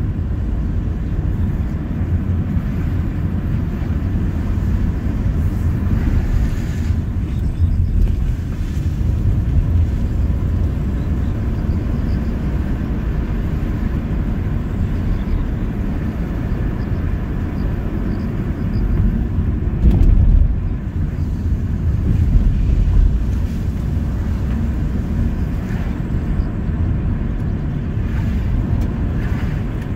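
Car driving along a road: a steady low rumble of road and engine noise, swelling briefly about twenty seconds in.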